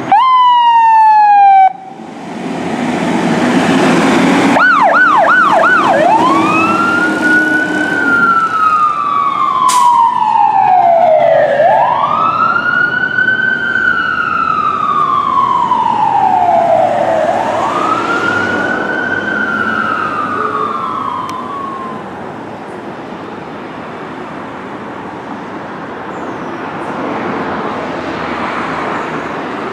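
Pierce fire engine's siren as the engine pulls away: a loud falling tone at the start, a brief quick yelp about five seconds in, then three slow wail cycles, each rising and then falling. After the wail stops the sound fades to steady traffic noise.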